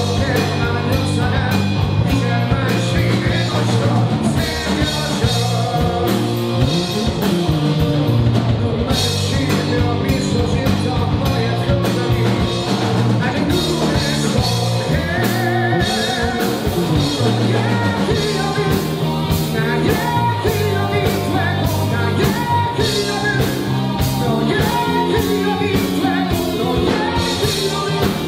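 Live rock band playing: a male vocalist singing over electric guitar, bass guitar and drum kit with a steady beat.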